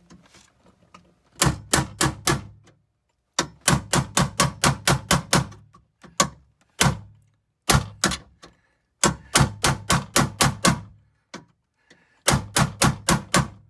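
Hammer rapidly tapping a punch to drive the centers out of aluminum rivets, in quick runs of about five blows a second with short pauses between them.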